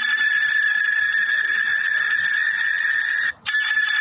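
Cartoon submarine sound effect from a kids' flashcard app: a steady high-pitched whine over a hiss that cuts out briefly a little after three seconds in, then starts again as the effect loops.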